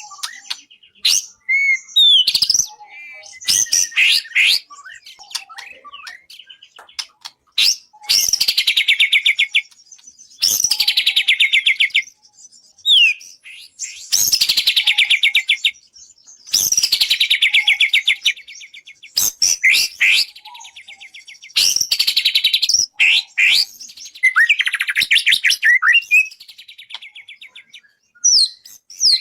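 Songbird song from a masteran tutoring recording for training a magpie robin: loud phrases of about two seconds, repeated every few seconds, each a fast rattling trill with a falling sweep, with short sharp chirps between.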